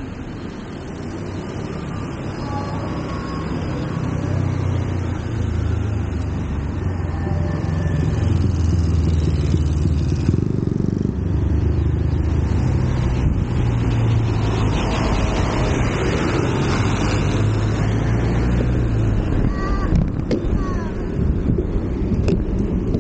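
Wind rushing over the microphone of a bike-mounted camera on a gravel road bike coasting downhill, building louder as speed picks up, with a low drone underneath. A few brief squeaks come near the end.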